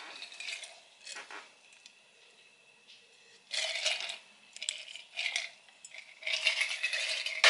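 Glass bottles and glasses clinking and rattling against each other as they are moved and set down, in several short bursts.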